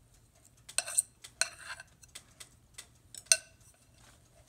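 Metal fork scraping and clicking against the inside of a mixing bowl as sticky biscuit dough is scraped out, in a few separate strokes with the loudest about a second in, half a second later, and again near three seconds in.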